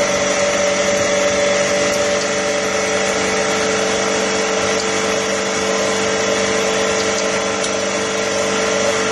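A steady mechanical hum of a motor running, with a whining tone that slowly sinks a little in pitch.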